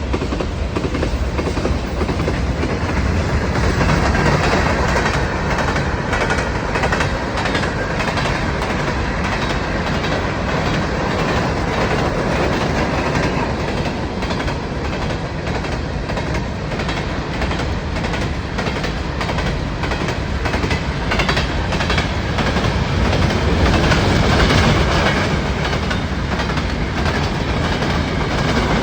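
Train running on rails, a steady rumble with wheels clacking over the rail joints throughout.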